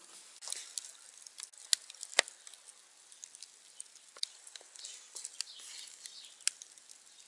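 Charcoal in a mangal crackling under skewers of shashlik: a faint steady hiss with scattered sharp pops, two louder ones about two seconds in.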